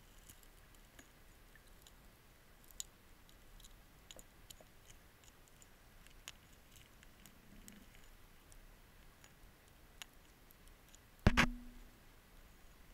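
Faint, scattered small clicks and ticks heard underwater through a submerged camera, with one loud knock that rings briefly about eleven seconds in.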